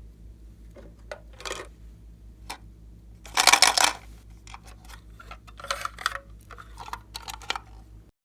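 Glossy slime being pressed and worked by hand, giving scattered sticky clicks and pops. A denser, louder burst of crackling comes a little over three seconds in, with more crackly bursts a couple of seconds later, over a steady low hum.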